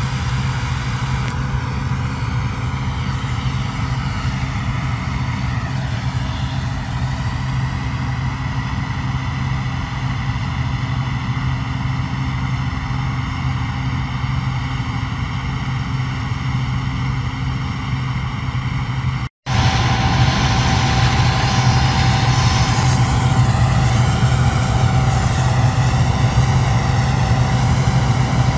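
Bizon Rekord combine harvester's diesel engine running at a steady pitch, with a short break about two-thirds of the way through before the same sound carries on.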